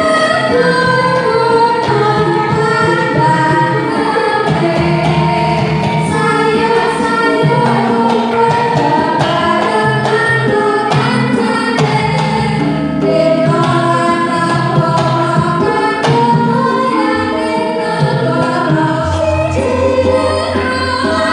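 Javanese karawitan gamelan music with a female singer, played through a PA sound system during a sound check.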